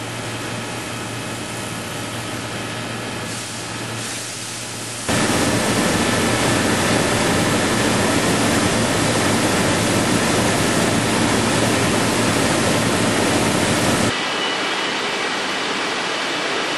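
Takumi CNC machining center milling a steel plate: a steady hissing machine noise that jumps suddenly louder about five seconds in and drops back just as suddenly around fourteen seconds.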